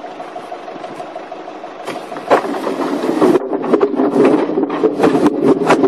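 Forklift engine running steadily, then a bit over two seconds in a tall stack of logs collapses onto it: a loud, continuous clatter of many logs knocking and tumbling against each other.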